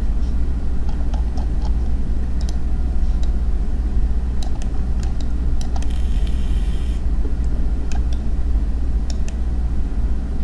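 Steady low background hum and noise with scattered faint clicks, and a brief higher hiss about six seconds in.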